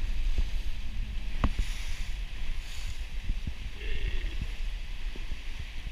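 Small motorboat moving slowly at low throttle: a steady low rumble with wind on the microphone and a few light knocks. It is quieter from the start than just before, as the boat eases off.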